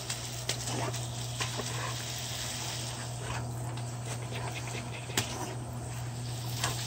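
Garden hose spray hissing steadily as it lands on grass and on a dog, over a low steady hum, with a few short sharp clicks along the way.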